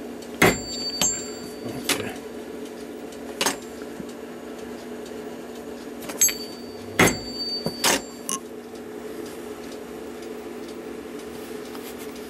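Light hammer raps on a punch against a small brass clock part, about eight sharp metallic taps at uneven intervals, some leaving a brief high ring, over a steady hum. Each rap closes up a hole slightly so a new pin fits tight.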